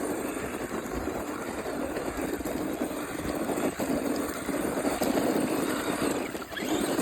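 Radio-controlled car running, giving a steady, noisy whir.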